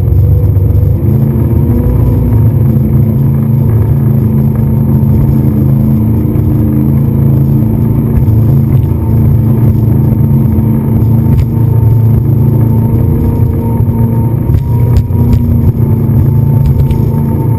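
Speedboat engine running loud and steady at speed, its pitch nearly constant, with a few sharp knocks near the end.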